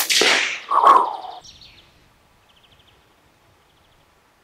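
Two short, loud noisy sounds in the first second and a half. Then it goes quiet, with faint rapid bird chirps.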